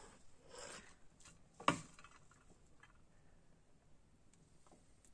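Grated beetroot sliding off a glass plate into a frying pan: faint soft rustling, with one light knock about a second and a half in.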